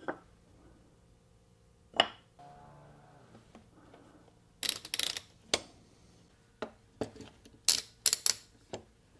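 Steel F-clamps being set on a wooden glue-up: a sharp knock about two seconds in, then two clusters of rattling, clicking metal as the clamp jaws are slid along their bars and snugged against the wood.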